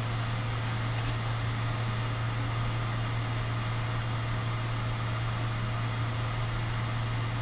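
Vacuum pump running steadily with a low hum and hiss as it pumps down the plasma chamber.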